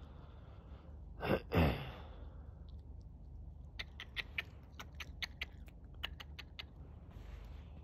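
Two short cries falling in pitch about a second in, then a red fox chewing salami: a quick, irregular run of sharp clicks lasting about three seconds.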